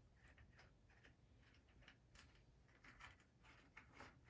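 Faint, irregular ticks and clicks of a T-handle hex wrench backing an action screw out of a rifle stock.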